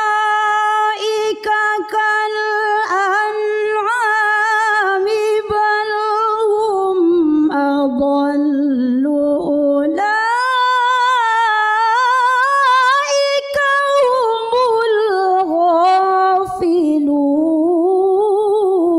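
A woman recites the Qur'an in unaccompanied melodic tilawah style, holding long ornamented notes with a single voice. The pitch sinks low a little before halfway through, then steps back up about halfway and carries on in a higher, wavering line.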